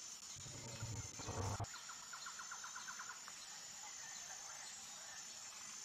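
Quiet bush ambience: a steady high insect drone, with a bird's rapid, even trill lasting about a second, about two seconds in.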